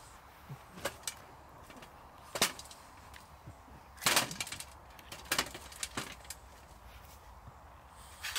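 Split firewood logs knocked together and set down onto a burning wood fire in a metal fire pit: a handful of sharp wooden knocks, the loudest cluster about four seconds in, with the fire crackling in between.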